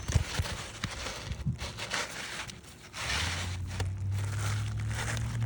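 Roofing work on asphalt shingles: a few dull knocks and scuffing noises, then a steady low hum starts about three seconds in.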